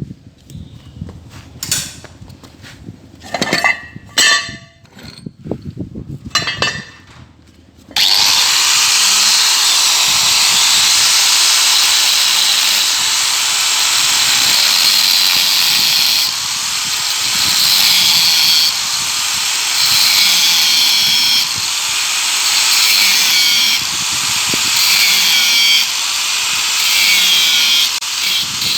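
A few sharp metal clicks and knocks from parts being handled, then about eight seconds in a power tool starts cutting into metal with a loud, steady noise that swells every couple of seconds as the cut is pushed.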